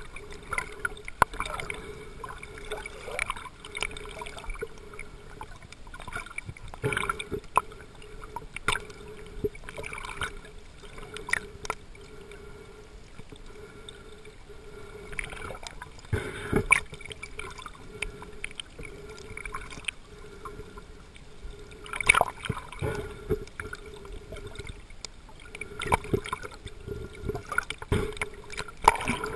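Underwater water noise picked up by a camera held below the surface while snorkeling: irregular knocks, crackles and gurgles from the swimmer's movement and the water, over a steady low hum.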